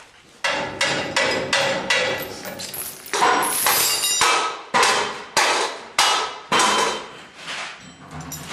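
Repeated hammer blows, about a dozen strikes at an uneven pace, each with a short ringing tail.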